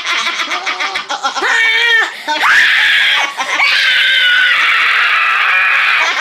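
Voices making deliberately silly vocal noises: quick choppy laugh-like yelps and sliding squeals, then, from about two and a half seconds in, one long high-pitched scream held steady.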